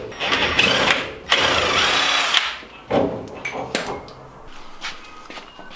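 Cordless power tool run in several bursts, about a second each, then shorter ones, while working on fasteners at a car's front wheel.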